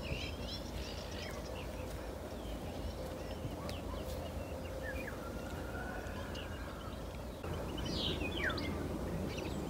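Morning birdsong, a racket of several birds calling at once, among them Eurasian golden orioles in an oak tree. Short chirps and whistles come from several directions, with a clear falling whistle about eight seconds in, over a low rumble.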